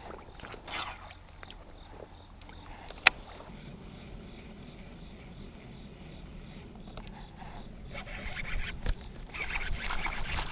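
Crickets chirring in a steady, even high drone. A single sharp click comes about three seconds in, and rustling noise builds near the end.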